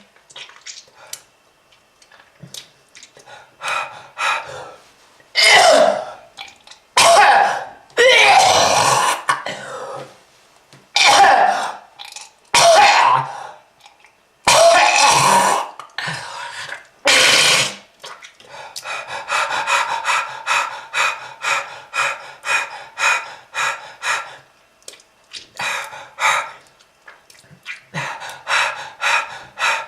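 A person coughing and clearing the throat in hard, irregular fits, then a long run of short, rapid hacks about two and a half a second: a smoker's cough, of the kind that comes with lung disease.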